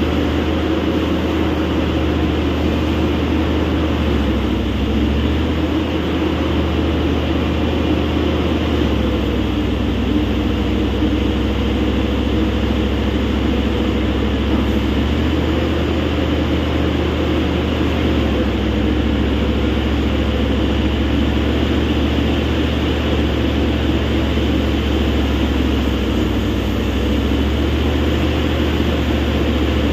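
Hitachi EX3600-6 hydraulic mining excavator working, heard up close on its deck: a loud, steady drone of its diesel engine and hydraulics. The engine note shifts slightly a few times as the machine moves.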